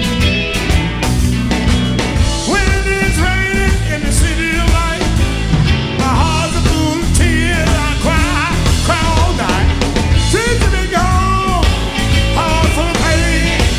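A four-piece electric blues band plays live: two electric guitars, bass and drums. Over the steady band, a lead line bends and wavers in pitch.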